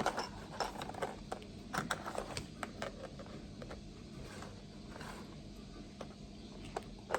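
Scattered light clicks and taps of small toys being handled and set down, with a faint scrape.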